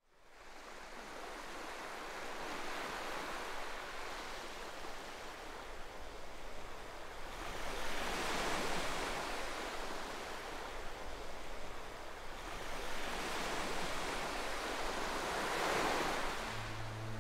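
Waves washing on choppy estuary water, with wind, fading in at the start and swelling twice.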